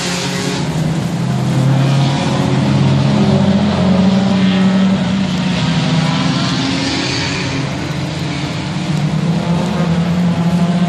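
Club race cars passing on track, a Mazda MX-5 Miata and then a Ford Focus among them. Several four-cylinder engines run at high revs at once, their notes shifting up and down with throttle and gear changes, loudest in the middle.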